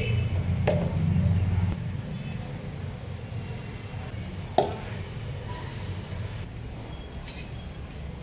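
Two short clinks of a utensil against a steel mixer-grinder jar, the second, about halfway through, sharper and louder, over a steady low background rumble.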